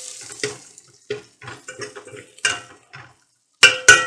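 Metal ladle scraping and knocking against an aluminium pot while stirring shallots, garlic and curry leaves frying in oil, the sizzle fading out over the first second. Near the end come two loud, ringing clanks of the ladle against the pot.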